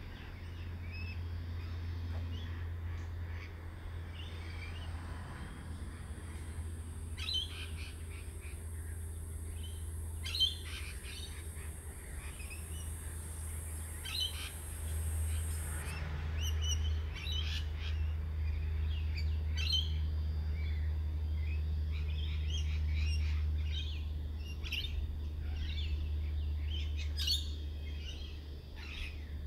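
Birds chirping and calling in short, scattered bursts over a steady low rumble. A steady high-pitched drone runs under the calls through the first half and cuts off suddenly about halfway through.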